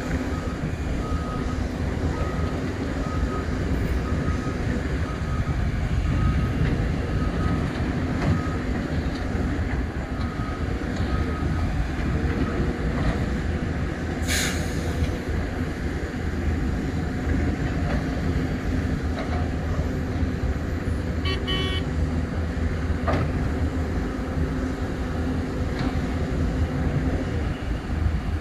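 Diesel engines of Hitachi Zaxis 470H excavators and dump trucks running steadily under load. For the first twelve seconds a short beep repeats about once a second. A sharp metallic knock comes about fourteen seconds in.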